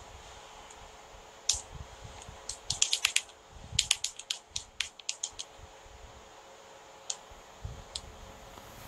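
Long acrylic fingernails clicking, in a quick run of taps from about two to five and a half seconds in, then a couple of lone clicks near the end.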